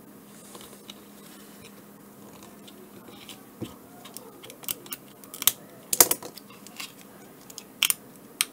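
Plastic shell of an HME BAT50 headset battery pack being cut and pried apart along its glued seam with a knife blade: scattered small clicks and scrapes, with a few louder snaps in the second half.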